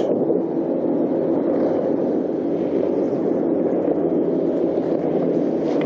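Bass boat's outboard motor running steadily with the boat under way, with water and wind noise.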